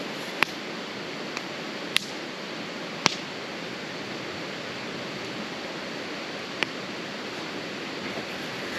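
Wood campfire burning, with four sharp pops over a steady rushing hiss.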